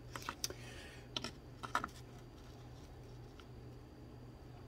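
Faint, scattered light clicks and taps, several in the first two seconds and one more about halfway through, from handling and seating a fiberglass motor plate for an RC boat motor mount.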